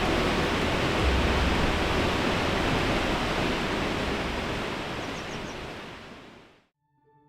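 Jōren Falls waterfall: a steady rush of falling water that fades out over the last two seconds or so.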